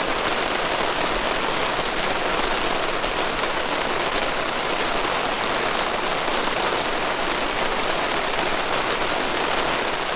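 Rain falling steadily: a dense, even hiss with no breaks, fading out at the very end.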